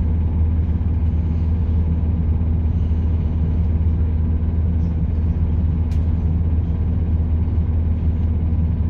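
British Rail Class 170 Turbostar diesel multiple unit heard from inside the carriage on the move: a steady low drone from its underfloor diesel engine mixed with the rumble of the wheels on the rails. A single sharp click comes about six seconds in.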